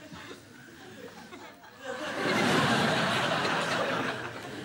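Studio audience laughing, swelling up about two seconds in and dying away toward the end.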